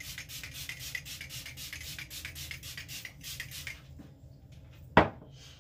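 Quick, even rubbing strokes on skin, about five or six a second, as rose water toner is rubbed over the face; the strokes stop about four seconds in. A single sharp knock about five seconds in.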